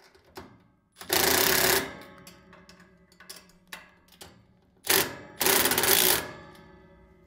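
Milwaukee cordless impact driver running bolts tight on a CB antenna mount bracket, in three bursts: one about a second in, a short one near five seconds and a longer one right after it.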